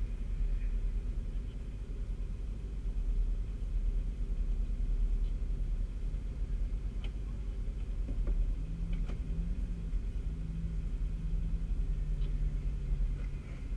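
Nissan Patrol's engine idling, heard from inside the cab as a steady low rumble, with a few faint ticks.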